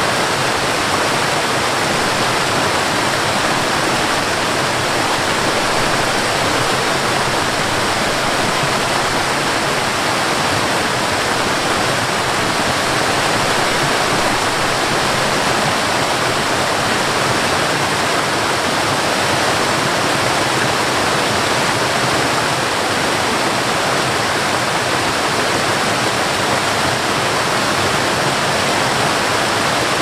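A waterfall cascading over rock ledges into a stream: a steady, even rush of falling water.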